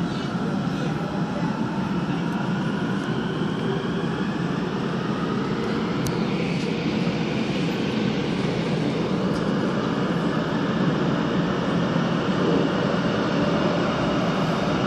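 Busan Metro Line 3 subway train accelerating away from a station into the tunnel, heard from inside the car. The traction motors whine in rising tones over steady wheel and rail rumble that grows a little louder, with one sharp click about six seconds in.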